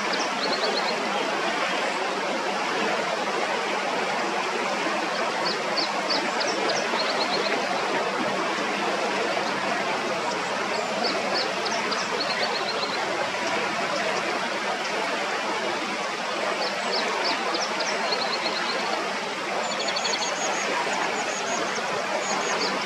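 Shallow river running steadily over rocks. A small bird repeats a short high song phrase, a few quick notes then a trill, about every five seconds.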